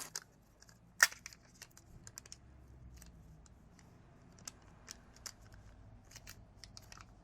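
Scattered small clicks and taps from handling the phone's parts and repair tools during a smartphone battery swap, with one sharper click about a second in.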